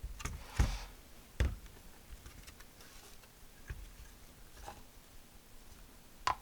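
A few light knocks and taps of parts being handled on a workbench, the two loudest about half a second and a second and a half in, with scattered smaller ones after.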